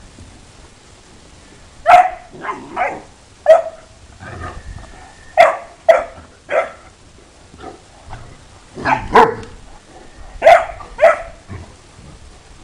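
Fila Brasileiro dogs barking at play: about a dozen short, sharp barks in quick clusters of two or three, starting about two seconds in, with quieter pauses between.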